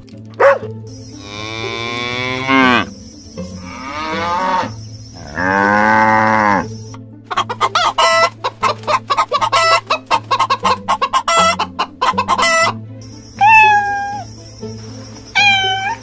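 A cow mooing in three long calls, then chickens clucking in a rapid run of short calls, then a cat meowing twice near the end.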